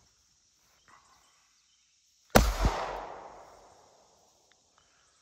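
A single shot from a Hi-Point C9 9mm pistol a little over two seconds in, followed by a quick echo, the report fading away over about a second and a half.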